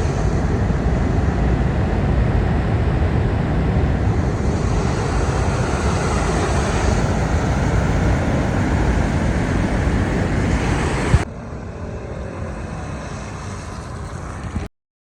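Steady, dense rushing noise, heaviest in the low end. About eleven seconds in, it cuts to a quieter rush, which then stops abruptly shortly before the end.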